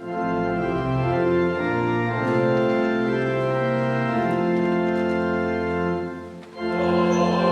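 Church organ playing sustained chords, with a brief break near the end; then a congregation or choir comes in singing with the organ.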